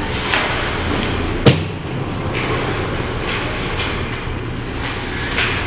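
Ice hockey rink play: a steady wash of skates on the ice over a low hum, with a few short skate scrapes and one sharp stick-and-puck impact about a second and a half in.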